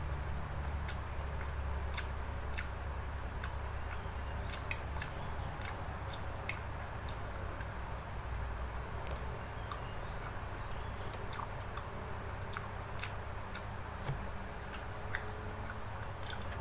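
A person chewing food, with scattered small mouth clicks and smacks, over a steady low hum.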